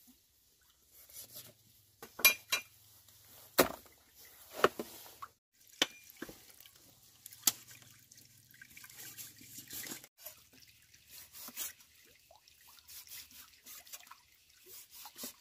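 Cleaver chopping fatty pork on a thick wooden chopping block: a string of sharp, irregular knocks of the blade striking the wood, louder and about a second apart in the first half, then fainter, quicker clicks of cutting.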